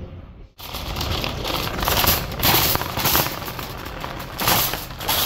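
Metal wire shopping cart rattling and clattering as it is pushed over a bumpy floor. The rattle starts about half a second in and swells and eases in waves.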